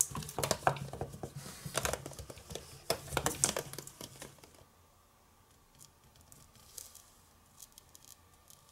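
Hard plastic gacha capsules handled on a wooden table, clicking and knocking against each other and the tabletop for about four and a half seconds. After that, only a few faint scattered ticks.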